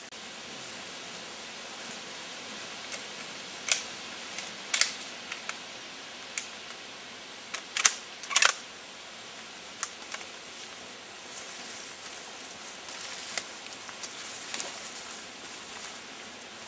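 Twigs snapping and brush crackling underfoot as people push through dense undergrowth: a handful of sharp cracks, loudest near the middle, over a steady hiss.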